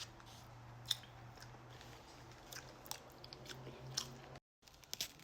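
A person chewing food close to the microphone, with scattered soft mouth clicks and smacks over a faint steady low hum. The sound cuts out completely for a moment near the end.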